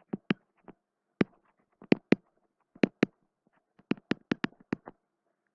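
Sharp clicks and taps from writing by hand on a digital whiteboard, about a dozen in small irregular clusters.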